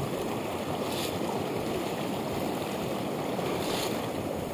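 Mountain torrent rushing steadily over rocks.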